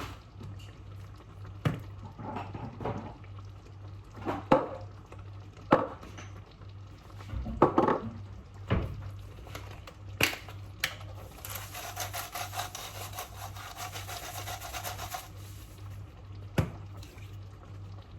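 Cooking sounds from a pot of thick chicken-pie filling: scattered knocks and clinks of utensils against cookware, with a few seconds of rapid, even rubbing or scraping past the middle, over a steady low hum.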